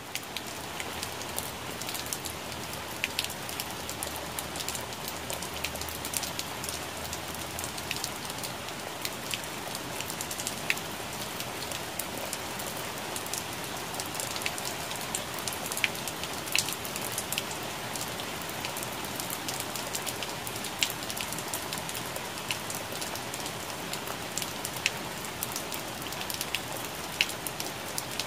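Steady rain falling on plant leaves: an even hiss, dotted all through with sharp ticks of single drops hitting leaves close by.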